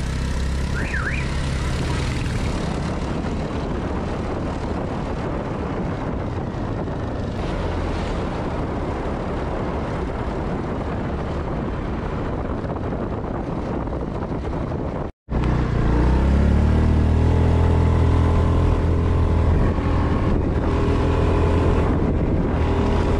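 Motorcycle engine running while riding, mostly covered by steady wind rush on the microphone. About fifteen seconds in the sound cuts out for a moment; after that the engine note comes through clearly, rising as the bike speeds up and then holding steady.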